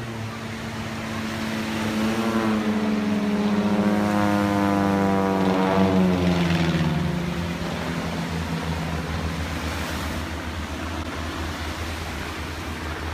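Propeller airplane's engine droning as it flies past. It grows louder, drops in pitch about six seconds in as it passes, then carries on steadier and a little quieter.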